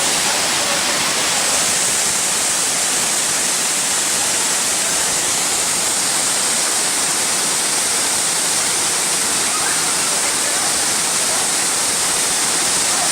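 Waterfall rushing: steady, loud falling-water noise.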